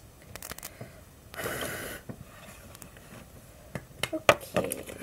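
Small clicks and knocks of makeup containers being handled, with a short rustle about a second and a half in and a cluster of sharper clicks near the end, as a blush compact is picked up.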